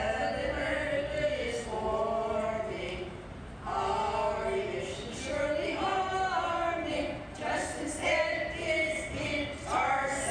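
A small group of older women singing together, unaccompanied, with short breaks between sung lines.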